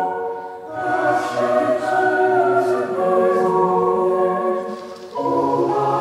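A choir singing a slow piece in long held chords, as background music. The chords change about a second in, around three seconds and near five seconds, each change after a brief dip.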